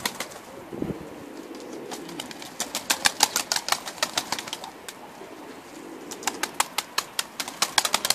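Kelkit crested pigeons flapping their wings, with quick runs of sharp wing claps coming several times as birds take off and land. Soft cooing sits underneath.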